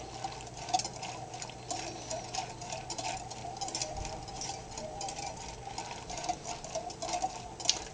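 Wire whisk stirring grated soap into hot water in a glass measuring jug, its wires ticking and scraping against the glass in quick, irregular clicks as the soap flakes dissolve.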